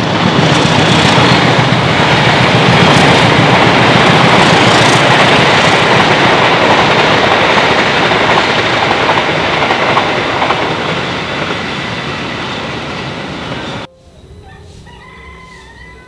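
A loud, steady rushing rumble that cuts off suddenly about two seconds before the end, leaving a much quieter background with a few faint high tones.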